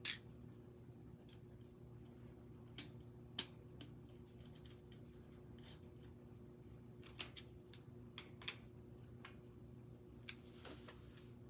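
Faint, irregular clicks and taps of a Phillips screwdriver driving small stubby screws into a black steel mesh letter-tray frame, metal parts knocking lightly against each other, over a low steady hum.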